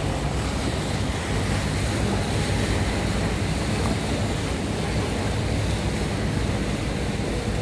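Water rushing and splashing past a moving boat, with wind buffeting the microphone over a steady low engine hum.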